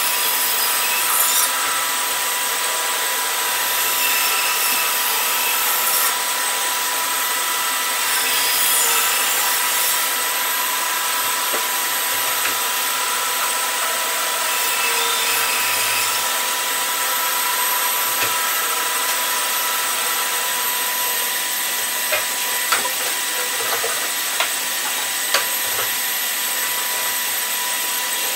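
Bandsaw running with a steady whine, its blade cutting a thick wooden guitar body blank as it is fed along the curved outline. A few light knocks near the end.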